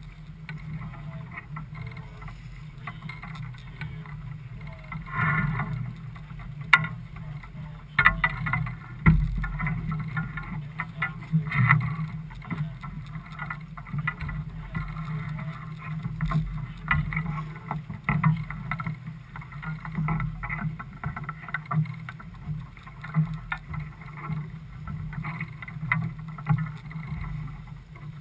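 Motor yacht's engine running steadily on the water, with wind and water noise and occasional sharp knocks.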